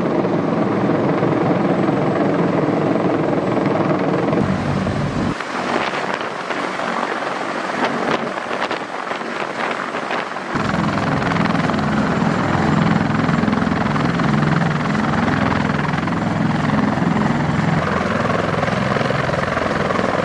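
Marine Corps CH-53E Super Stallion heavy-lift helicopter, its rotor and turbine engines running loud and continuous. The sound changes abruptly about four seconds in and again about ten seconds in, as it passes overhead, comes in low over the ground and then runs on the ground with a heavy steady drone.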